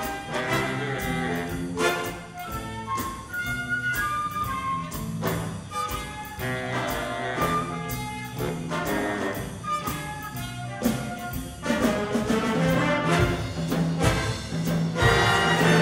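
Live big band jazz: saxophone, trumpet and trombone sections with grand piano, drum kit and guitar playing together, the drums keeping a steady beat. The band swells louder and fuller about twelve seconds in.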